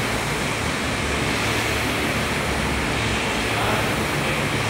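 Concept2 air rowing machine's flywheel fan whooshing steadily as it is rowed hard.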